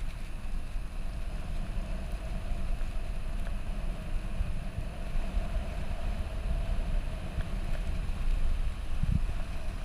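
Wind buffeting the microphone as an uneven low rumble, over a steady outdoor background hiss.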